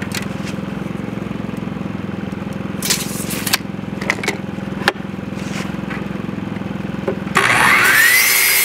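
A steady low mechanical hum with a few wooden knocks as a board is handled. About seven and a half seconds in, an electric power saw starts up with a fast-rising whine and runs at full speed, cutting a board to length.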